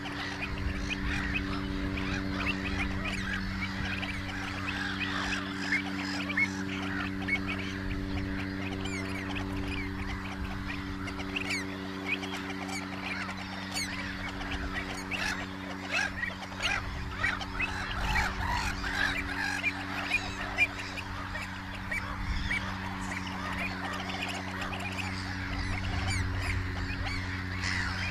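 A large flock of red knots calling at once, a continuous chatter of many short overlapping calls, with a steady low hum underneath.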